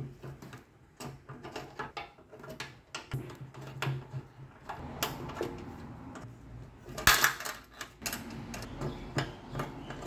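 Small metallic clicks and clinks of an Allen key working the screws out of a motorcycle fuel pump's mounting flange on the tank, with a louder clatter about seven seconds in.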